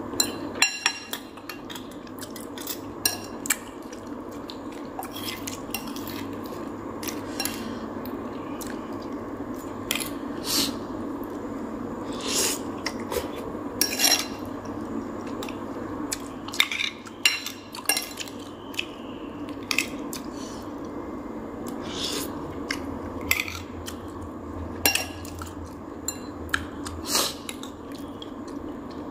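Metal utensils clinking and scraping against cookware in irregular sharp knocks, over a steady background rush.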